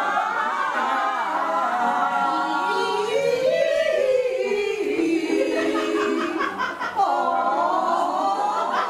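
Women's voices singing a folk-style song without accompaniment, with long held, sliding notes.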